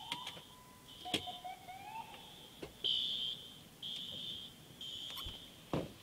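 A siren tone slides up and holds twice in the first two seconds. From about three seconds in, a high-pitched electronic alarm beeps in even pulses about once a second, with a few sharp knocks.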